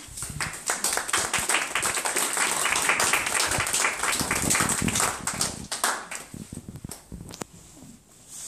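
Small audience applauding, a dense patter of handclaps that thins out and dies away after about six seconds.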